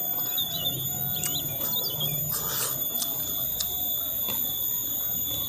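Eating sounds of chewing and lip-smacking, short clicks now and then, with small birds chirping in the background, mostly in the first two seconds.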